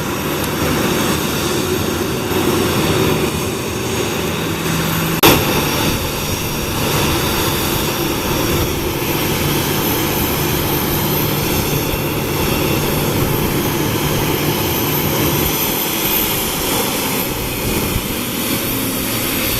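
Jet engines of a Boeing 737-800 (CFM56-7B turbofans) running steadily, with one sharp knock about five seconds in.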